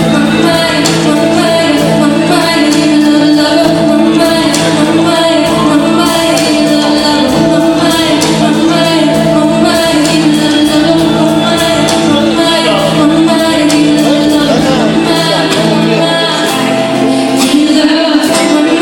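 Pop music with a voice singing over held chords that change every few seconds.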